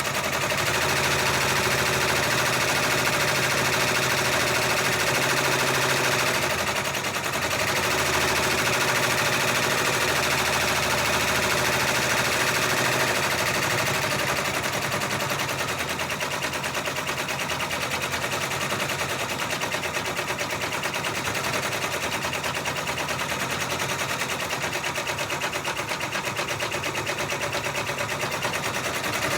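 Six-needle embroidery machine stitching at speed, a steady, rapid run of needle clicks; it drops slightly in level about halfway through.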